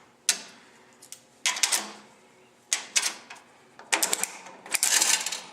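Coin-operated restroom vending machine being worked, with sharp mechanical clicks and clanks about once a second, then a quick run of rattling clicks near the end as the item is dispensed.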